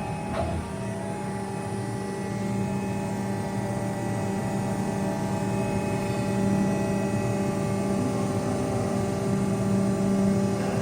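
Four-roll plate bending machine running with a steady hum, with a brief click about half a second in.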